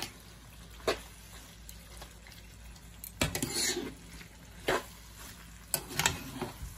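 Metal spoon and fork tossing pasta in a non-stick frying pan: scattered clinks and scrapes of metal on the pan, with a cluster about three seconds in, and soft stirring of the noodles between.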